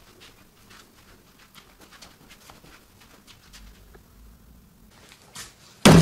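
Faint scattered clicks and rustles, then near the end a sudden loud crackle as plastic mailer bags and padded envelopes are grabbed and shifted in a plastic tub.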